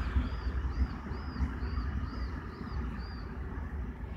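The diesel engine of an ST48 shunting locomotive running with a low, pulsing rumble. Over it, a small bird gives a series of high, evenly spaced chirps, about three a second, which stop about three seconds in.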